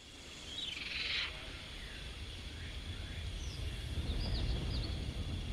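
Gallimimus sound effect fading in from silence: a short, high screech-like call about a second in, then a few small bird-like chirps, over a low rumble that steadily swells.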